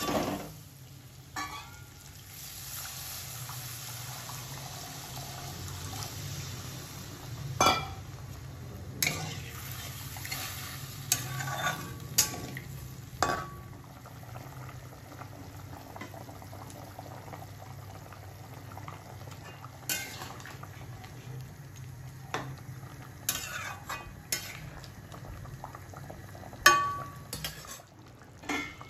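A spatula scraping and knocking against an aluminium kadai every few seconds, over the steady sound of a curry cooking in the pan.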